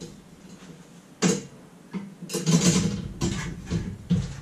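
Steel patch panel being stretched by hand to put more curve in its body line: a series of irregular metallic clunks, about half a dozen, each with a short ring from the sheet steel.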